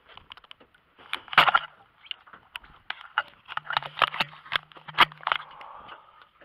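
Hands working a multiplier fishing reel and rod right beside a body-worn camera: a quick string of clicks, knocks and scrapes, loudest about a second and a half in and again around four and five seconds. A short steady hum runs under the later knocks.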